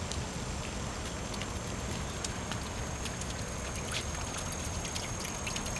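A garden fountain's water splashing steadily, an even rain-like patter.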